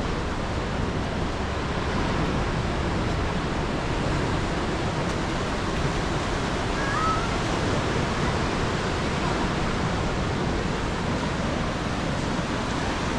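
Steady wash of surf breaking on a beach, with a brief faint chirp about seven seconds in.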